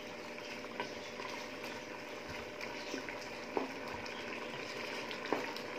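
Thick beef tripe curry bubbling at a simmer in an aluminium pot as its water cooks down, with a few light clicks.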